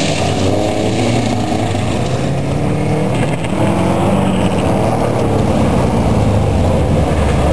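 A Subaru's engine revving up and down hard as the car spins circles on loose gravel, with the hiss of gravel and dust thrown by the spinning tyres.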